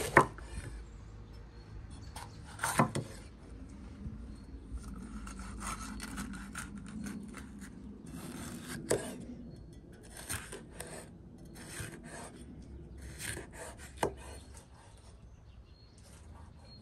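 Chef's knife slicing a red bell pepper on a wooden cutting board: crisp cuts through the pepper and sharp knocks of the blade on the board, the loudest near the start and about 3, 9 and 14 seconds in.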